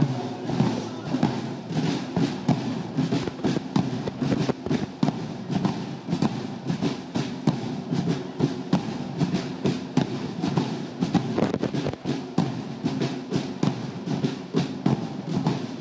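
A marching drum corps playing bass drums and smaller marching drums, beating out a fast, steady rhythm of strokes.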